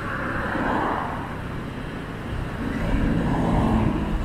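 Street traffic and road noise during a drive through town: a steady low rumble with two swells, one around the first second and a louder, deeper one from about three seconds in.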